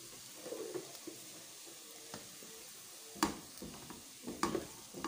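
Shredded chicken and cabbage filling sizzling faintly in a metal pot over a low flame. From about three seconds in, a spatula stirs it with several short scrapes and knocks against the pot.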